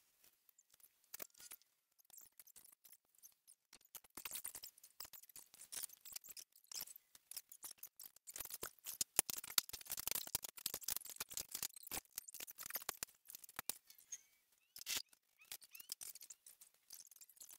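Faint, irregular clicking and scratchy rubbing of gloved hands working over a stained wooden bench top, busiest in the middle with another short cluster near the end.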